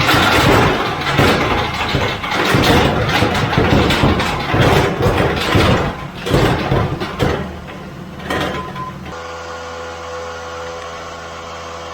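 A '67 Nova's LS376 V8 on a chassis dyno, with loud running and many irregular knocks and clattering as the driveshaft comes apart under load. About nine seconds in, the noise drops suddenly to the engine idling steadily.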